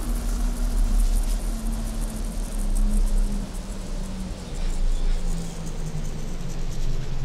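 Experimental electronic sound piece built from heavily processed recorded body sounds and synthesizer: a deep bass drone under a noisy wash, with a low tone stepping down in pitch and faint scattered crackles, the top end gradually dulling.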